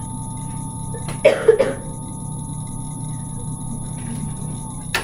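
A person coughing: a short fit of two or three coughs about a second in, over a steady background hum with a thin steady tone. A sharp click near the end.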